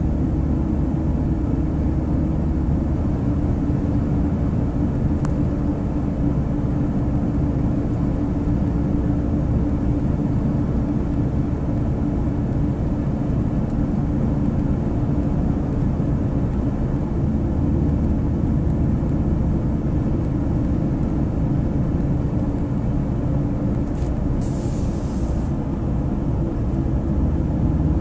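Steady low road and engine rumble inside a moving vehicle's cabin, with a brief hiss near the end.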